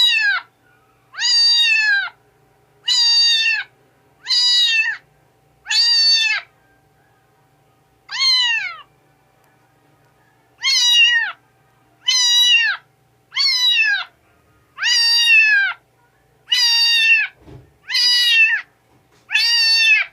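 Kitten meowing over and over: about a dozen short, high-pitched meows, each dropping in pitch at the end, mostly a second or so apart with a couple of longer pauses.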